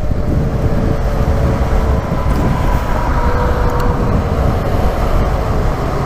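Sport motorcycle cruising at road speed: loud wind rush over the microphone, with a faint, steady engine note underneath.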